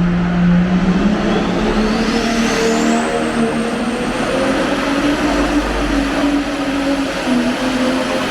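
Pulling tractor's engine running hard under load. A high whine climbs in pitch over the first few seconds and then holds steady.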